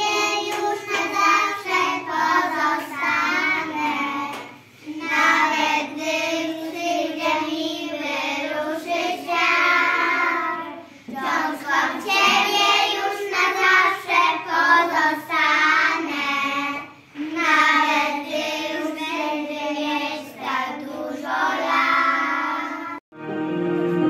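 A group of young children singing a song together in unison, phrase by phrase with short breaks between lines. Just before the end the singing cuts off abruptly and instrumental music begins.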